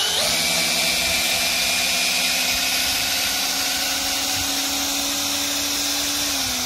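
Metabo cordless drill/driver running steadily as it backs a screw out of a timber of a wooden boat stand, a continuous motor whine whose pitch dips slightly about six seconds in.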